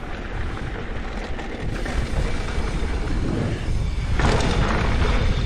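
Mountain bike setting off down a dirt flow trail: tyres rolling on dirt and wind rushing over the microphone, getting louder as speed builds, with a brighter rush from about four seconds in.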